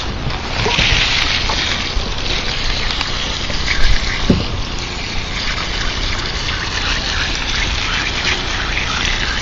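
Steady rushing of running water, starting abruptly, with a few faint short higher sounds over it and a brief louder moment about four seconds in.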